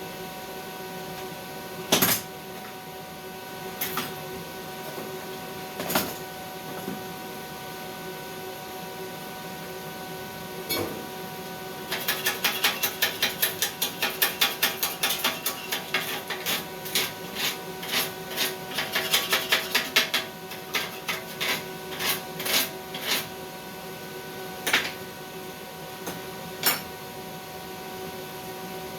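Steady electrical hum with a few sharp clicks, and a run of rapid, irregular tapping that lasts several seconds in the middle.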